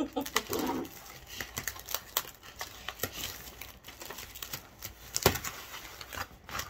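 Plastic film crinkling and tearing as it is peeled off a packaged tray of beef roast and vegetables, a run of scattered crackles with a sharper snap about five seconds in.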